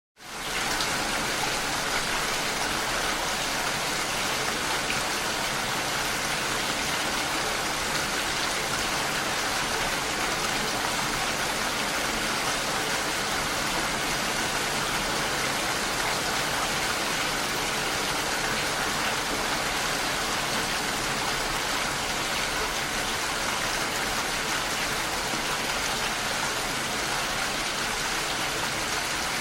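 Steady rain falling, an even hiss with no thunder, fading up out of a brief silence at the very start.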